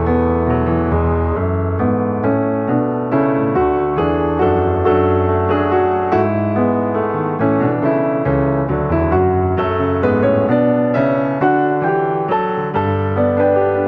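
Background piano music, a steady flow of notes struck one after another.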